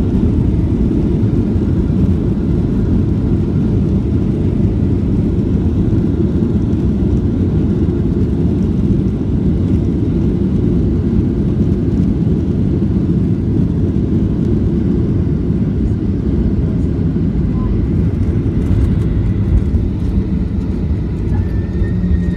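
Cabin of a Boeing 737 during the landing rollout: a loud, steady low rumble of the jet's engines and wheels on the runway.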